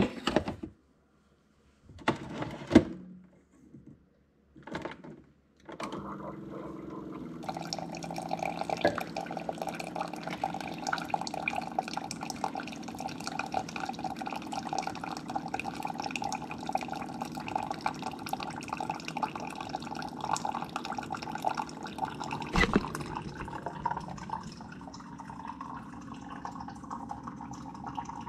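Single-serve coffee maker brewing into a mug: a few short clicks and knocks, then about six seconds in its pump starts and runs with a steady hum over the trickle of water filling the cup. The flow stops with a click about twenty-two seconds in, leaving a quieter hum.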